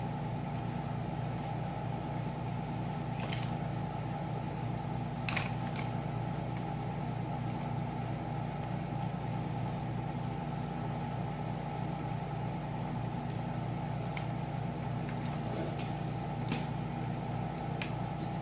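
Room air conditioner running with a steady, loud hum, with a few light clicks of small parts being handled now and then.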